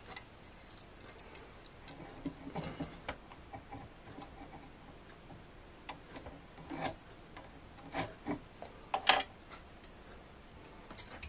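Pencil scratching lines along a steel combination square on the end of a beech block, with a few light clicks and taps as the square and pencil are handled and set down.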